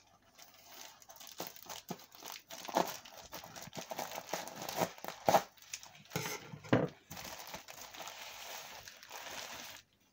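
Plastic film and bubble wrap crinkling and rustling as a wrapped parcel is cut open with scissors and unrolled by hand, with several sharper crackles in the middle and a steadier rustle that stops abruptly near the end.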